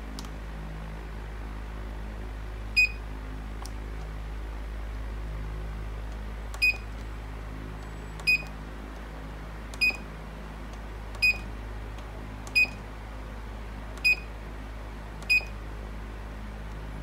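Control-panel beeper of an MLGB black garlic fermenter giving eight short, identical high beeps, one for each button press, as the temperature and hours are set.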